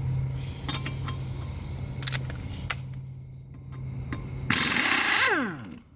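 A few light metal clinks of tools, then a short, loud burst of a pneumatic air impact gun whose motor winds down in falling pitch as the trigger is let go. A steady low hum runs underneath until the burst.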